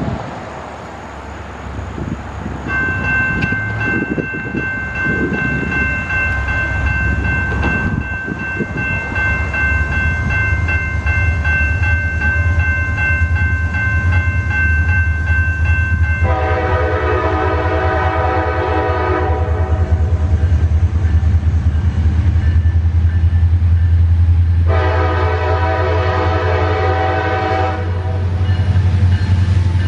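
Railroad crossing bell starts ringing about three seconds in as the signals activate, over the low rumble of the approaching CSX diesel locomotive, which grows louder. From about halfway the locomotive's multi-note air horn sounds two long blasts, and a third begins near the end, the start of its crossing signal.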